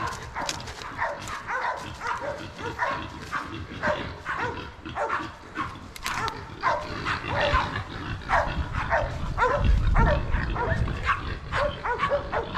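Hog-hunting dogs barking over and over, about two barks a second, each falling in pitch. The barking is the hog dogs' bay as they work a hog. A brief low rumble comes about ten seconds in.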